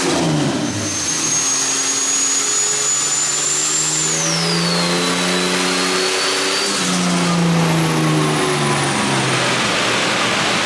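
Twin-turbo 4.0-litre inline-six of a Ford AU Falcon run under load on a chassis dyno, its pitch climbing and dropping back twice as the automatic transmission shifts up, with a thin high whistle over it. This is a run on the stock fuel pump, which leaned the engine out before it reached boost.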